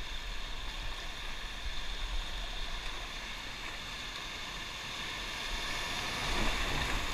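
Steady rush of river water through rapids, growing a little louder toward the end.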